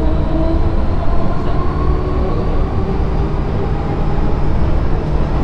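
MTR M-train electric multiple unit heard from inside a passenger car while moving through a station: a steady rumble of wheels and running gear, with a faint whine that slowly rises in pitch.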